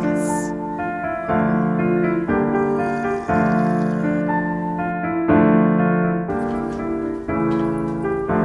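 Background music: piano playing sustained chords that change about once a second.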